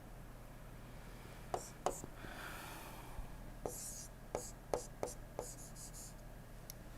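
A pen drawing a diagram on paper: short scratchy strokes and light taps of the pen tip, irregular, about seven of them, over a faint steady hum.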